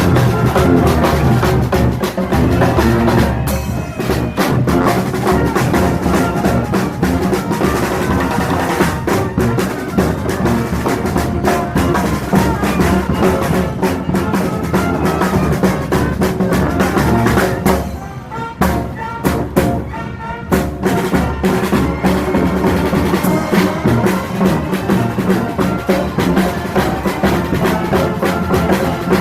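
Street brass band playing live: horns over snare and bass drum with a steady beat. The sound thins out briefly about eighteen seconds in, then the full band comes back.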